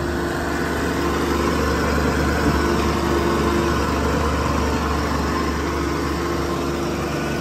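Diesel engine idling steadily, a constant low hum with a held mid tone over it.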